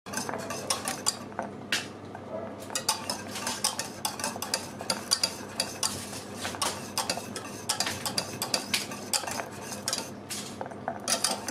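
A utensil stirring thickening custard in a pot on the stove, with quick, irregular scraping and clicking against the pot several times a second.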